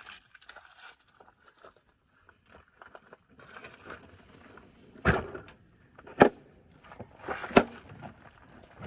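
Faint scattered clicks and rustles of handling, then three sharp knocks, about five, six and seven and a half seconds in.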